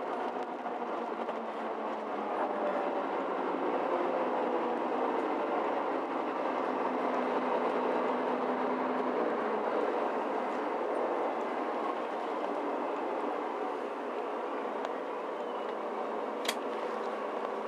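Mercedes-Benz Citaro C2 G articulated bus with a tower-mounted rear diesel engine running, heard from inside the passenger cabin as a steady hum of engine and rolling noise. Two short sharp clicks sound near the end.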